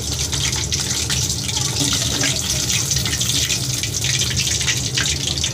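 Chicken pakoras sizzling in hot oil in a wok: a steady frying hiss dotted with many small pops and crackles, as the fried pieces are lifted out.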